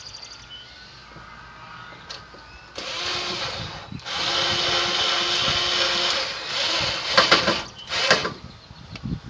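Power drill driving screws to fasten a truck's dash pad: two steady runs of the motor a few seconds in, then a couple of short bursts near the end.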